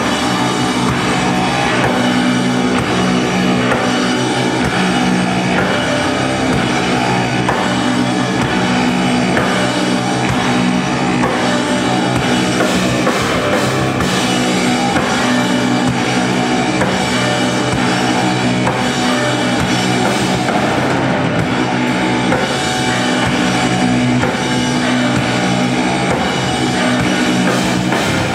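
A live rock band playing at a steady, loud level: drum kit and electric bass with guitar, dense and without a break.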